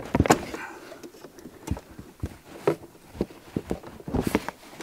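Irregular clicks and knocks from hands working parts loose in a truck's engine bay, around the air intake, with a brief scrape near the start.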